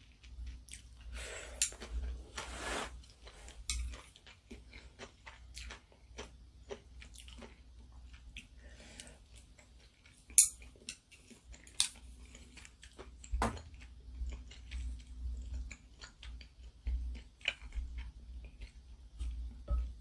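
Close-up eating sounds: ramen noodles and kimchi being chewed, with many small wet clicks. Wooden chopsticks and spoon knock against the bowl now and then, the sharpest knock about ten seconds in.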